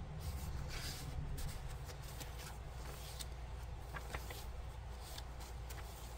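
Paper rustling and a few soft clicks as the pages and a paper tag of a thick handmade journal are handled and turned, over a steady low hum.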